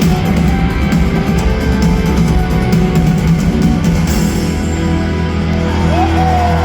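Live rock band playing with distorted electric guitars and drums. About four seconds in the music settles into a held low chord, and a short whistle rises from the audience near the end.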